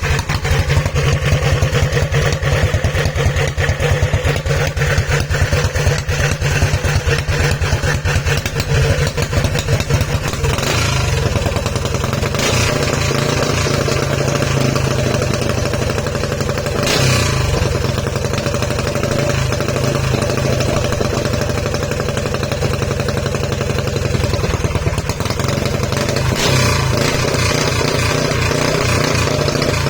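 Yamada 18 hp engine running steadily and loud, with rapid firing pulses. From about ten seconds in it runs smoother and more evenly.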